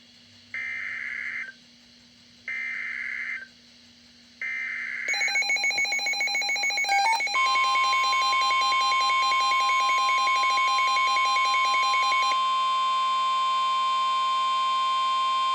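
Emergency Alert System (EAS) broadcast on NOAA Weather Radio: three short screeching digital header bursts about two seconds apart, announcing a new warning. About five seconds in, a rapidly pulsing electronic alarm starts, then settles into the steady 1050 Hz weather-radio warning tone, with another alarm pattern layered over it.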